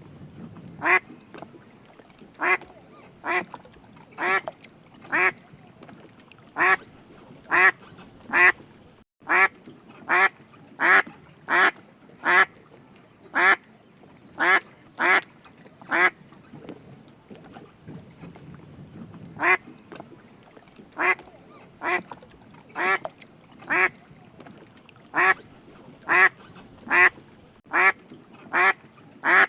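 A duck quacking: single short quacks repeated at about one a second, with a pause of about three seconds past the middle.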